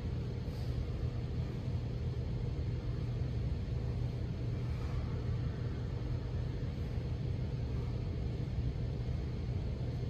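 Steady low background rumble.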